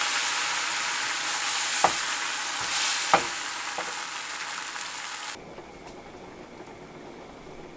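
Food sizzling as it fries in hot oil and is stirred, with two sharp clicks of a utensil against the pan. The sizzle cuts off abruptly about five seconds in, leaving only a faint hiss.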